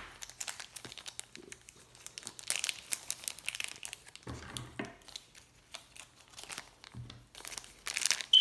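Thin clear plastic wrapper crinkling and rustling as a foam squishy toy is worked out of it by hand. It comes in irregular bursts of crackle, loudest near the end.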